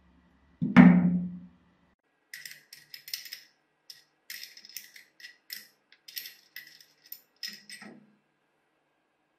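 One deep, drum-like hit about a second in. Then a run of light, irregular metallic clicks and clinks: a steel combination wrench's ring end knocking against a hex nut and bolt as it is fitted over the nut and turned.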